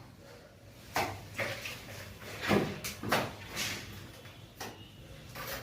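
Plastering trowel scraping and smoothing fresh cement plaster on a wall: a series of short, irregular strokes.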